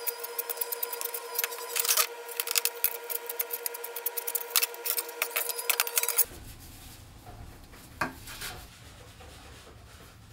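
Rapid scraping and rubbing strokes of hand tool work in a workshop over a steady hum. Both stop abruptly about six seconds in, leaving quiet room tone with a single knock near eight seconds.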